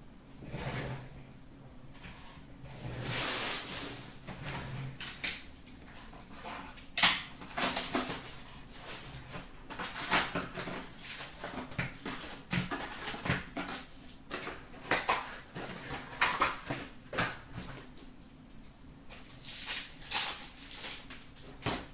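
2018-19 Upper Deck SP Authentic hockey card packs being pulled from the box and torn open: wrappers crinkling and ripping in irregular bursts, with sharp clicks and taps of cards and cardboard.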